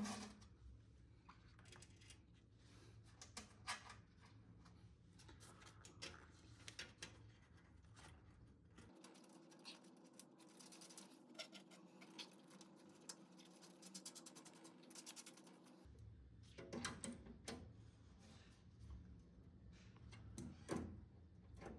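Faint clicks and scrapes of hand tools and small metal parts while the power contacts are screwed back onto a humidifier heating element, with a quicker run of small ticks in the middle.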